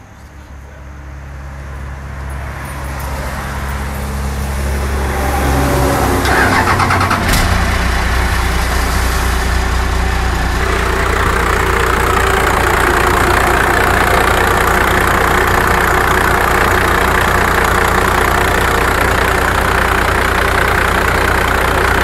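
The 1995 Dodge Ram 3500's 5.9-litre Cummins diesel being started, getting louder over the first several seconds and settling at about seven seconds in into a steady idle with diesel clatter.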